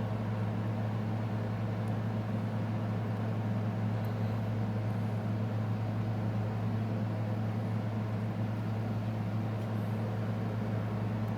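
Steady low mechanical hum, even and unchanging throughout, with a little faint hiss above it.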